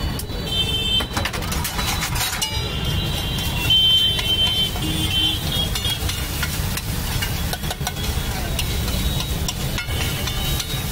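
Steel ladle scraping and knocking on a large flat steel griddle as an egg mixture is scooped and worked, with a few sharp metal clinks over a steady low rumble.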